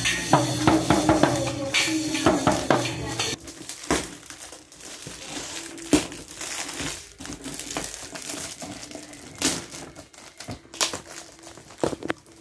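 For the first three seconds or so, a plastic toy drum kit is struck with sticks over music. Then metallic foil gift wrap crinkles and tears as a box is unwrapped by hand, with a few sharp knocks against the cardboard.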